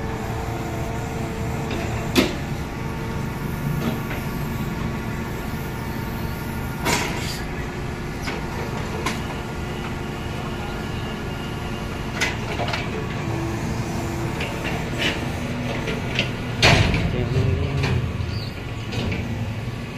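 Crane truck's engine running steadily to drive its hydraulic knuckle-boom crane, with scattered knocks and clatter of the steel block grab and concrete blocks; the loudest clatter comes about 17 seconds in.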